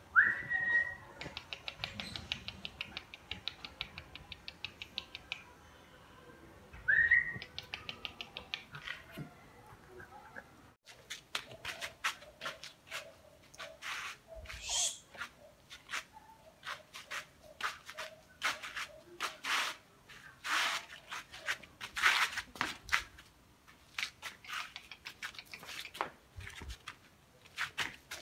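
Puppies scampering and playing on a concrete floor: quick runs of light ticking and irregular scuffling clicks. There are two short rising whistles, one at the start and one about seven seconds in.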